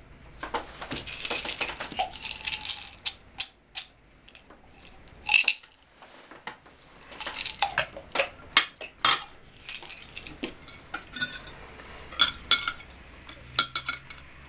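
Knives and forks clinking and scraping on china dinner plates as people eat, in irregular clicks and scrapes, the sharpest a few single clinks about halfway through and near the end.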